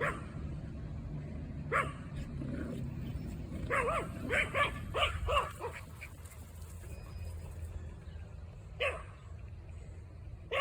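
Small Yorkshire terriers barking and yipping in play. There are single sharp barks, then a quick run of five or six yips about four seconds in, and another single bark near the end.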